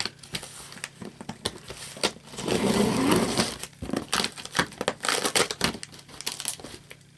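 Scissors snipping and slicing through packing tape on a cardboard box: a run of sharp clicks and crinkling, with a longer stretch of tearing tape about two and a half seconds in, growing quieter near the end.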